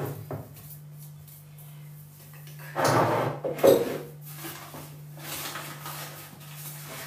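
Hands squeezing and mixing oatmeal cookie dough in a bowl, with a louder scrape lasting about a second, about three seconds in, over a steady low hum.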